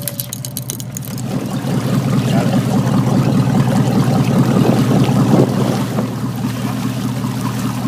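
Boat motor running steadily under way, with water washing along the hull. The motor grows louder from about two seconds in and eases a little near the end. Rapid ticking from the fishing reel as line runs out stops about a second in.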